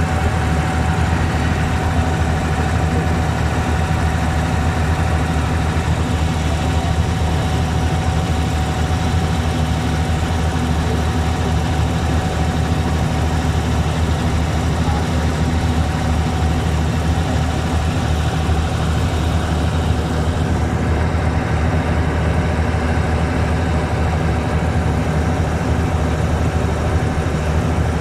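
Boat engine running steadily, heard from on board: a constant low drone.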